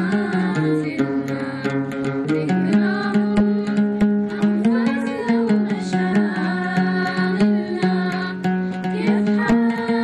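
Oud being plucked in a lively rhythm, with a singing voice carrying the melody.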